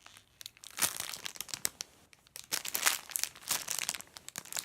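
Plastic packaging around a squishy toy crinkling in irregular bursts as it is handled and tilted, with a couple of brief pauses.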